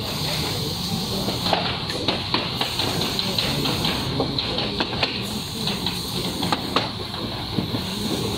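Automatic rigid box making machines running on a factory floor: a steady hiss with many irregular sharp clicks and clacks.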